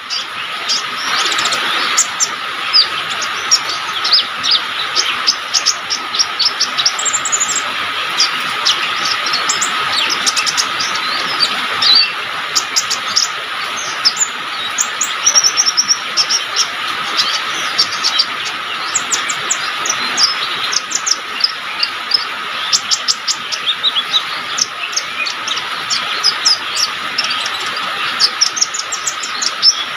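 Kolibri ninja sunbird singing non-stop: rapid, high, thin chirps and twittering trills, in the vigorous 'gacor' song used as a master recording for training songbirds. A steady high drone runs underneath.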